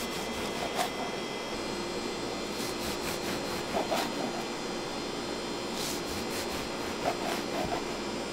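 Steady indoor hum with a few faint, light clicks and clatters.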